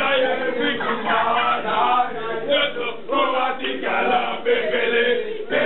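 A group of voices singing a chant together, male voices prominent.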